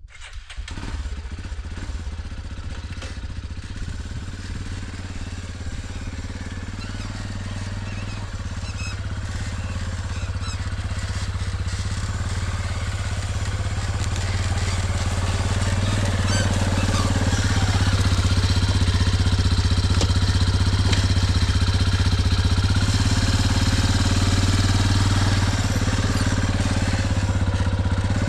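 A vehicle engine running steadily, growing louder over the first half and then holding.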